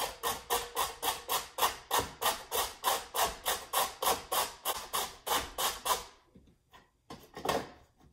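Green papaya being grated on a metal box grater: fast, even scraping strokes, about four a second, that stop about six seconds in, then a short run of strokes near the end.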